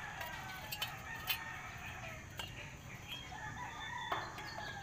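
Drawn-out bird calls that rise and fall in pitch, the last one held for about a second and a half, with a few clicks.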